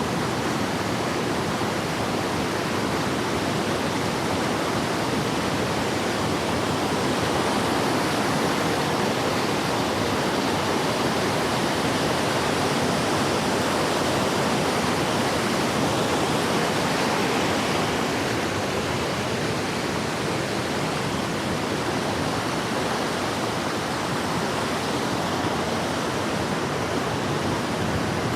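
Waterfall rushing steadily: a loud, even noise of falling water that hardly changes.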